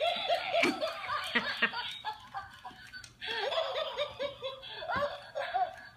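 Battery-powered laughing plush toy playing its recorded laugh, a string of rapid 'ha-ha' giggles. It laughs for about two seconds, breaks off for about a second, then laughs again almost to the end.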